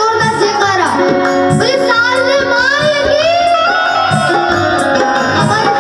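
Devotional folk song: a singer's voice gliding through a melodic line over steady held instrumental notes, with a regular drum beat.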